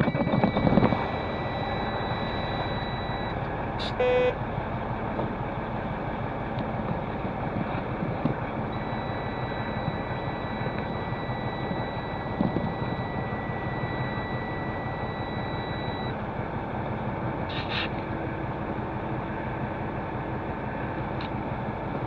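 Semi truck's diesel engine idling steadily, heard from inside the cab, surging in the first second just after being started. A short dashboard warning beep sounds about four seconds in.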